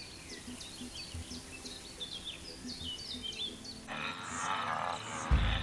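Small birds chirping repeatedly in natural ambience. About four seconds in, this changes abruptly to a steady hiss, with a low rumble coming in near the end.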